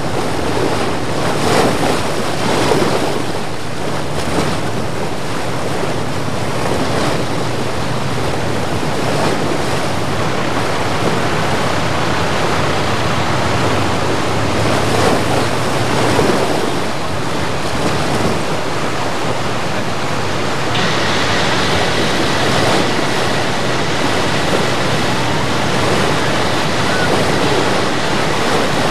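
Swollen creek in flood, fast water rushing and churning steadily.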